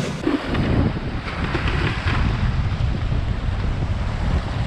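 Strong wind buffeting the microphone in a steady low rumble, with surf washing on the shore.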